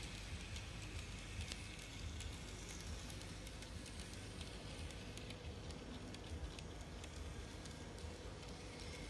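Kato Pocket Line N-scale steam locomotive running on Tomix track: a quiet motor hum under a stream of light, irregular clicks as its wheels and the cars behind it roll over the rails.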